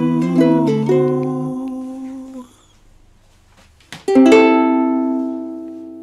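Ukulele-led song closing: the last plucked notes ring out and fade, a short pause follows, then a final strummed chord rings out and slowly decays.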